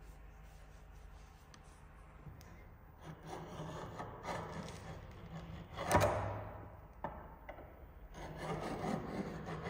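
Caliper jaw scraping along a steel knife blank coated in marker ink, scribing layout lines: scratching in several strokes, with one sharp click about six seconds in.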